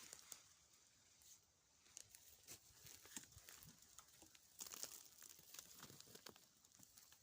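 Faint rustling and crackling of forest undergrowth, with scattered sharp snaps, as of dry leaves and twigs being trodden or pushed aside.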